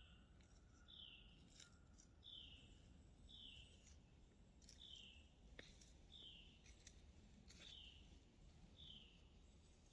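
Faint bird call: a short, down-slurred note repeated about once a second, nine times. A few faint sharp clicks fall between the notes.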